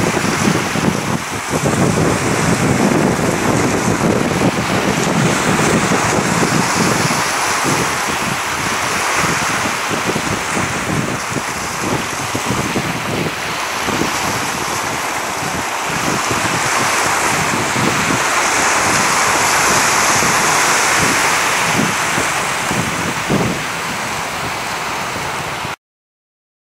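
Sea waves washing against shoreline rocks, a steady surging wash, with wind buffeting the microphone, strongest in the first few seconds. The sound cuts off suddenly near the end.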